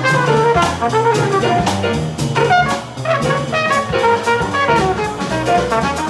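Live jazz combo: a trumpet plays a fast, busy solo line of quickly changing notes over upright bass and a drum kit keeping time with cymbal strokes.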